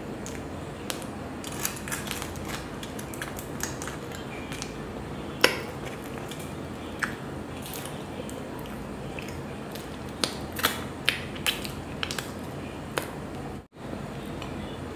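Close-up mouth sounds of a person eating soft chocolate cake: chewing with scattered sharp lip smacks and mouth clicks over a steady hiss. The loudest smack comes about five and a half seconds in, and a quick run of them follows about two-thirds of the way through. The sound drops out for an instant shortly before the end.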